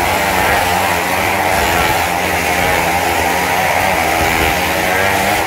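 Motorcycle engines revving continuously as riders circle the vertical wooden wall of a wall-of-death drum. The engine pitch keeps rising and falling as they ride.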